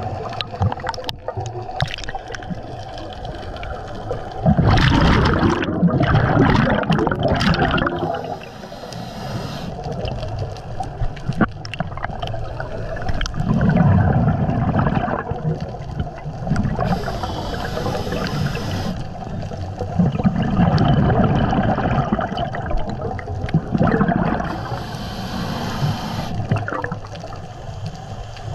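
Scuba diver breathing through a regulator underwater: a high hiss on each inhalation, then a gurgling rush of exhaled bubbles, in a slow cycle of about three breaths.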